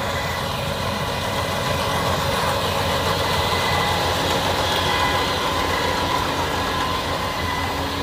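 Yanmar AW82 combine harvester's diesel engine and threshing machinery running under load while cutting rice: a steady drone with a few steady whining tones over it.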